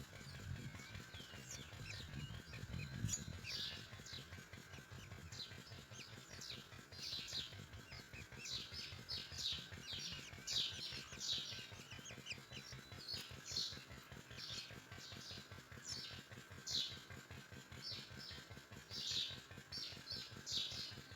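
Myna nestlings begging for food: short, scratchy high calls repeated rapidly in clusters of several a second.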